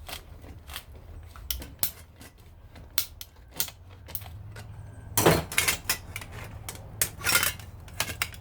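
Irregular metallic clicks, clinks and knocks from hand tools and metal parts of a garbage disposal being taken apart, with a louder flurry of clanks about five seconds in and again around seven seconds.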